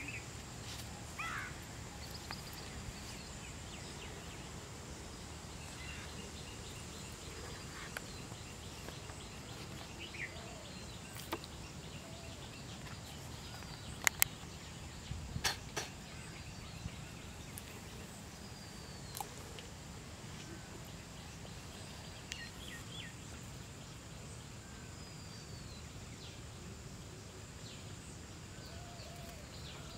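Open-air ambience by a pond: a steady hiss with a thin high tone, scattered short bird chirps and calls, and a few sharp clicks about halfway through, the loudest a close pair.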